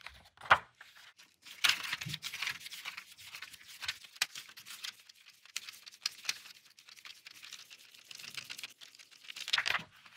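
Paper pages of a Lego instruction booklet being leafed through quickly: a continuous crackling rustle of turning pages full of small flaps and ticks. It starts with a sharp tick about half a second in and swells again near the end.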